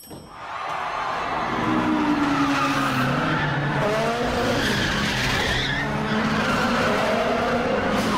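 A car drifting: the engine revs, its pitch rising and falling, under a steady screech of sliding tyres.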